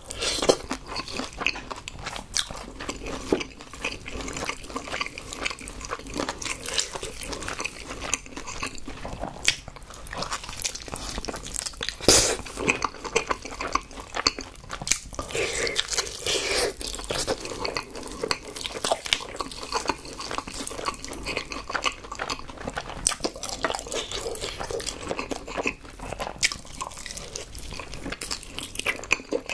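Close-miked crunching bites and chewing of crispy, sauce-glazed fried chicken, a rapid run of sharp crackles, with one especially loud crunch about twelve seconds in.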